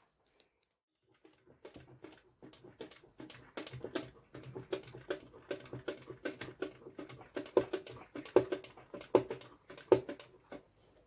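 A fast, irregular run of small clicks and taps that starts after a moment of quiet and grows louder toward the end.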